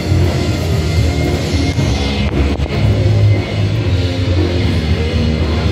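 Rock music playing, with held low bass notes that change every second or so.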